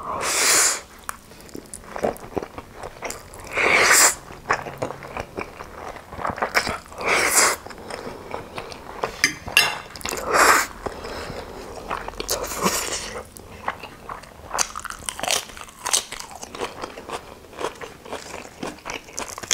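Close-miked eating sounds: spicy instant noodles slurped in several long rushes of air, with wet chewing and small mouth clicks in between. Near the end, crisp lettuce leaves are torn.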